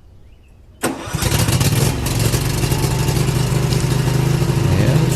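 Cub Cadet XT2 riding mower engine starting: a brief crank about a second in, then it catches and runs steadily.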